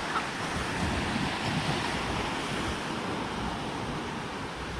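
Sea surf washing steadily on the shore, with wind on the microphone.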